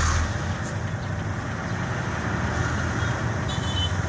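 Steady engine and road rumble from inside a moving vehicle in traffic, with a brief high-pitched tone about three and a half seconds in.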